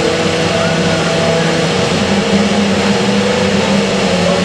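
Steady engine noise at a motor-racing circuit, a continuous hum whose tones drift slowly, with no single car passing by.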